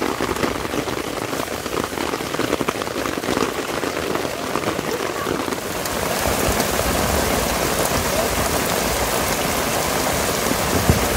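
Heavy rain drumming on a tent's fabric, heard from inside the tent as a dense crackle of drops. About six seconds in it turns into a denser, steadier and slightly louder rush of downpour, with a single knock near the end.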